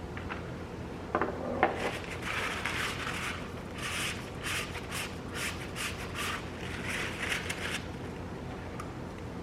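A few light clicks, then a run of short rubbing and scraping strokes, about two a second, on the oil filter cap as its rubber O-ring is changed.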